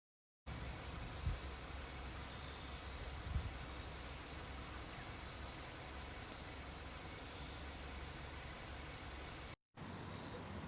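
Insects chirping in a high-pitched pulse repeating about twice a second over a faint low background rumble, with two soft thumps in the first few seconds.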